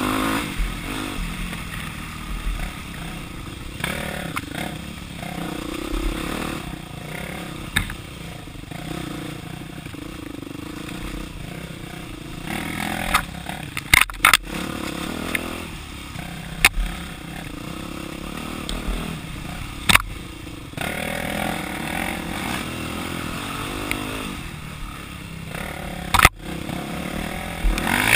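Dirt bike engine running and changing revs while riding a rough, narrow dirt trail, with clatter and scraping from the bike and brush, and a few sharp knocks from about halfway through.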